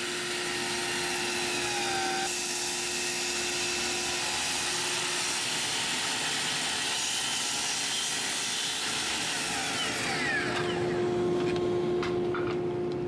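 Festool sliding miter saw running and cutting through the end of a thick glued-up hardwood block: a steady motor whine over the hiss of the blade in the wood, swelling slightly near the end.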